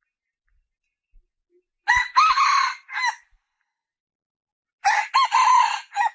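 Red junglefowl hen calling twice, about three seconds apart; each call is a short note, a longer held note and a short closing note.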